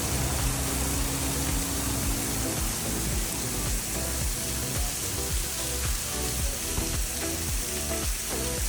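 Background music playing over a steady hiss of falling water from a waterfall.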